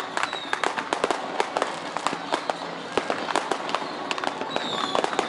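Strings of firecrackers set off from fishing boats, crackling in a dense run of rapid, irregular bangs, with a thin high whistle-like tone sliding down near the end.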